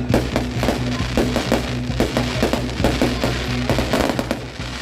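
Fireworks going off in many sharp, irregular cracks and bangs, several a second, over steady background music.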